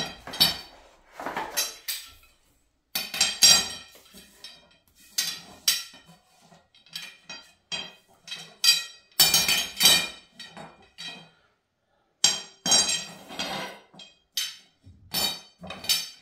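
Powder-coated steel tubes clinking and knocking against each other and on a tile floor as they are handled and laid down: a run of sharp, ringing metal knocks with short pauses between.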